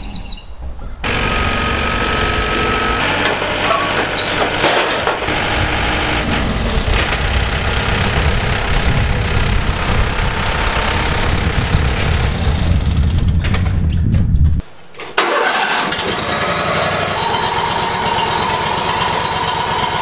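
Engines running: a compact tractor working its front loader to set a log on the sawmill bed, the engine sound starting abruptly about a second in. After a short drop near fifteen seconds, a Wood-Mizer LT35 portable band sawmill runs, with a steady whine over its engine.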